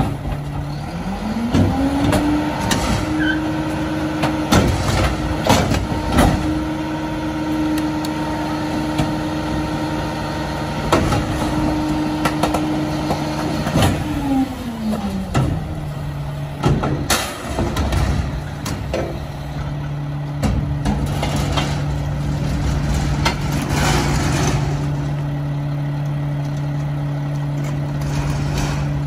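Mack LR rear-loader garbage truck's diesel engine speeding up, holding high for about twelve seconds, then dropping back to idle, the raised engine speed that drives the packer and dumper hydraulics. Metallic clanks and bangs come throughout.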